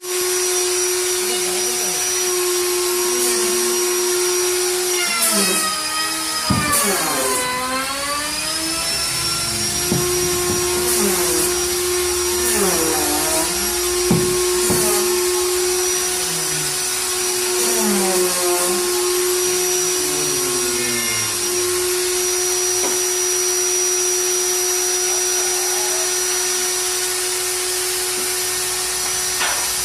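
Angle grinder motor running at a steady high pitch, its pitch dropping and recovering several times as the disc is pressed into work, the longest dip a few seconds in.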